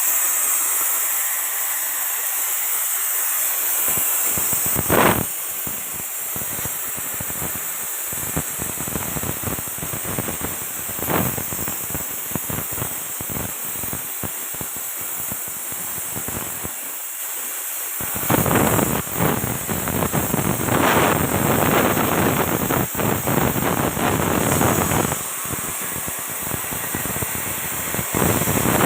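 Electric arc welding on a steel bucket: a crackling, sputtering hiss that comes and goes in spells, densest and loudest about two-thirds of the way through.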